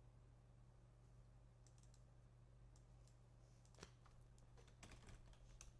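Near silence over a faint low hum, with a few faint, scattered clicks of a computer mouse and keyboard.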